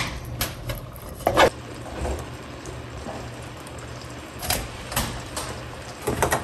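Wooden spatula stirring a simmering honey-soy sauce in a metal wok: a few scattered knocks and scrapes over a faint steady hum.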